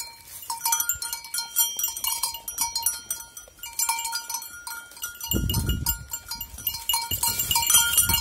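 Dwarf goats stripping and chewing leaves and twigs from holm oak branches: a dense, irregular run of crisp crackles and snaps from the leafy branches. Two low rumbles come in about five and seven seconds in.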